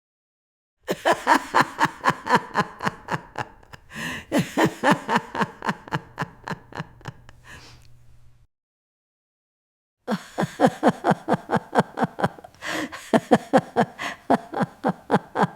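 An old woman laughing: two long bouts of rapid, pulsing "ha-ha-ha" laughter, the first fading toward its end, then a pause of about a second and a half before the second bout starts.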